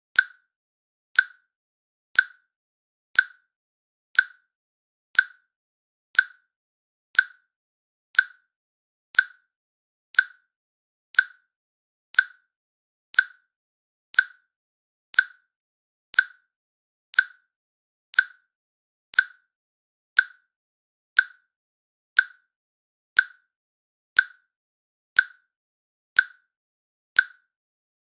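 Countdown timer ticking: a short, sharp click once every second, each click the same, with silence between.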